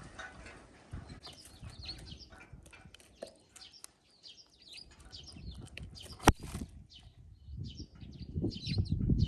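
Sparrows and tits chirping repeatedly in short, quick notes at a bird feeder. There is one sharp click about six seconds in and a low rumble near the end.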